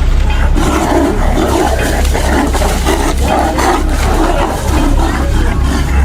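Rough animal growls repeated irregularly, over a steady low hum.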